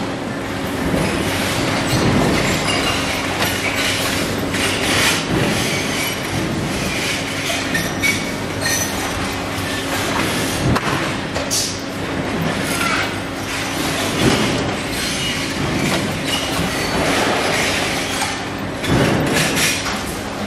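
Square ceiling diffuser assembly line running: a steady machine hum under a constant clatter of the chain conveyor and metal parts, with frequent short clanks and occasional high squeaks.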